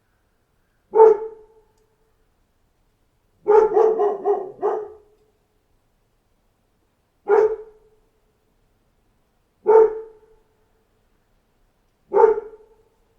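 A dog barking: one bark, then a quick run of about four barks, then single barks about every two and a half seconds, with silence between them.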